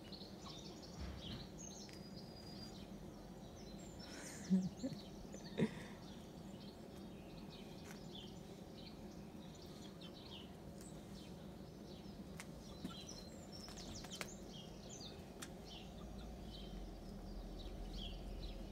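Outdoor garden ambience with small birds chirping and tweeting now and then. Two brief louder sounds come about four and a half and five and a half seconds in, and a low rumble builds near the end.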